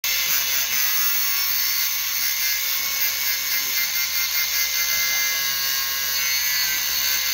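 Small angle grinder cutting through a steel rebar end: a steady, high-pitched grinding whine that holds at an even level.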